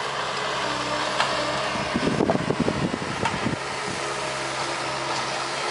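Bobcat S185 skid steer's diesel engine running steadily under load. Between about two and three and a half seconds in, a burst of crackling and snapping comes from the Brushshark tree shear cutting through cedar brush.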